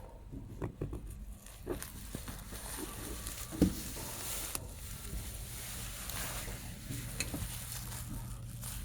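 Multi-layer fabric CNC cutting machine working: a steady hiss with scattered small clicks and one sharp knock about three and a half seconds in. A low hum joins about seven seconds in.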